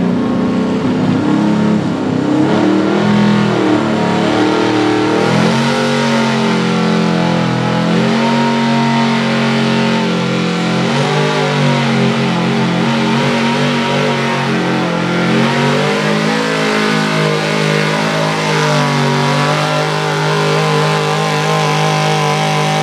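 Pro Stock 4x4 GMC pulling truck's engine running hard under load while pulling the sled. Its pitch wavers early, climbs about five seconds in and then holds high with small rises and dips.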